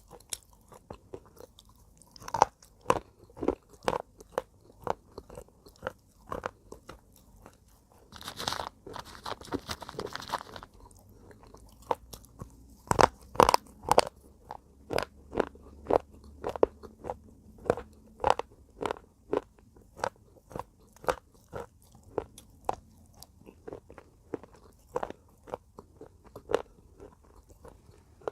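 Pieces of broken slate pencil being bitten and chewed: a long series of sharp, dry crunches, about one or two a second, with a longer stretch of continuous crunching about eight seconds in.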